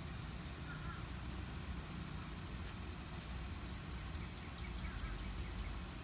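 Steady low rumble of engine or traffic noise, with faint short bird chirps about a second in and again near the end.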